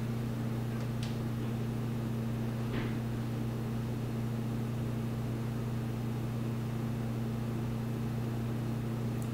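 A steady low hum with an even hiss under it, like a fan or appliance running. A faint tick comes about a second in, and a soft brief rustle near three seconds.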